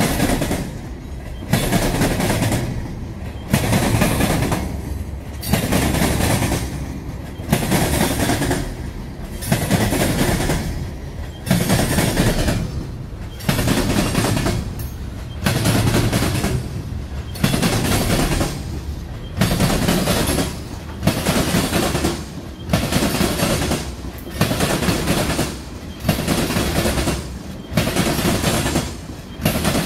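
Freight train rolling past at close range, its freight cars' wheels clattering over the rails in a steady rhythm, a loud burst about every two seconds.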